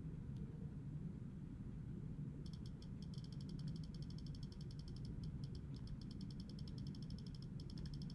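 A fast run of faint, high-pitched clicks starts about two and a half seconds in and goes on with a few short breaks, over a low steady hum.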